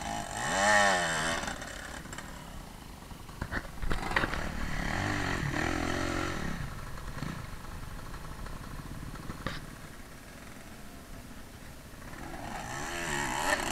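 Enduro dirt-bike engines revving in bursts under load on a steep climb, the pitch wavering up and down with the throttle. It is loudest about a second in, again from about four to six seconds, and building near the end, with a few sharp knocks of the bikes over rough ground.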